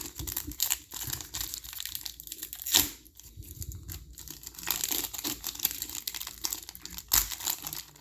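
A trading-card pack's plastic wrapper being torn open and crinkled in the hands, with a dense crackle and a sharp, louder crackle just before three seconds in and another about seven seconds in.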